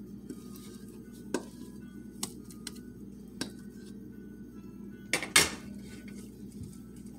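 Scattered knocks and clinks of a wooden spoon against a glass mixing bowl as kenkey corn dough is mixed, the loudest a pair of knocks about five seconds in, over a low steady hum.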